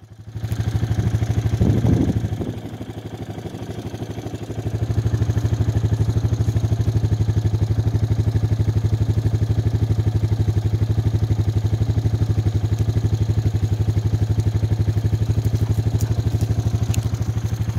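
Four-wheeler (ATV) engine running: it eases off right at the start, then settles into a steady, even drone from about five seconds in.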